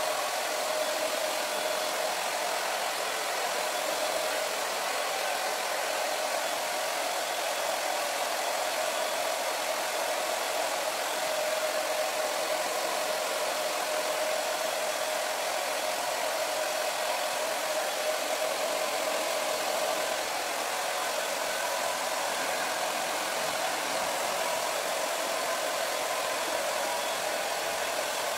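Handheld hair dryer running steadily: a constant rush of air over a steady motor hum, whose pitch shifts slightly about two-thirds of the way through.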